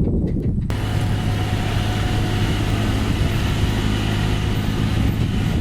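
Kubota DC-35 combine harvester's diesel engine running steadily under load. Less than a second in, a loud, even rushing noise comes in abruptly over the low engine rumble and holds.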